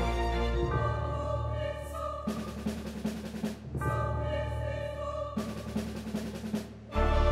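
Background music: a track of sustained chords, with two noisier, drum-like stretches in the middle.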